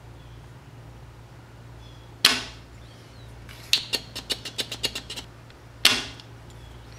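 Spring-loaded desoldering pump (solder sucker) firing twice with a sharp snap as its plunger is released to suck molten solder off the switch terminals, with a quick run of small clicks between the two shots.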